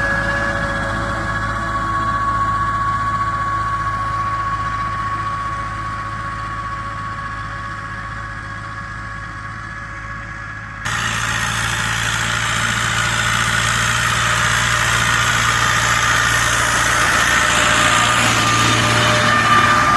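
YuMZ tractor's diesel engine running steadily under load while ploughing. About halfway through the sound jumps suddenly louder, with much more rushing noise over the engine.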